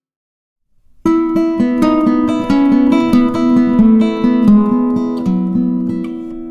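Acoustic guitar music starting about a second in: a quick run of plucked notes over ringing chords.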